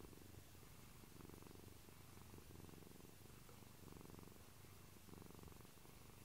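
Domestic cat purring softly and steadily, a faint low buzz that swells and fades about once a second.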